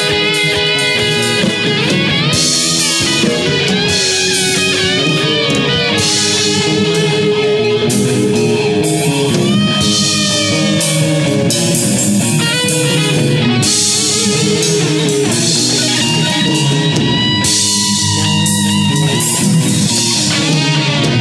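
Rock band playing: electric guitars over a drum kit with cymbals, steady and loud.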